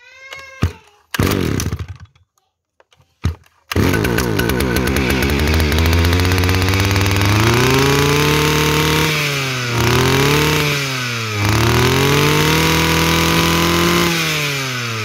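Kawasaki TD33 brush cutter's small two-stroke engine starting after a few short bursts and catching about four seconds in. It idles briefly, then is revved up and down three or four times, and drops back toward idle near the end.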